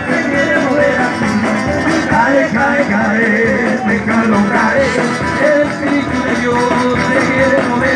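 Live praise band playing a Latin-style worship song on drum kit, keyboard and acoustic guitar, with voices singing.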